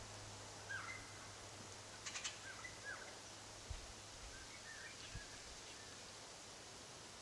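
Faint short bird calls and chirps, scattered through the first few seconds and again more faintly later, with a brief dry rattle of clicks about two seconds in, over a faint steady low hum.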